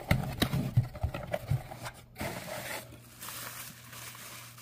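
Objects being handled and unpacked: a quick series of light knocks and scrapes with one firmer knock about two seconds in, then a steady rustle near the end.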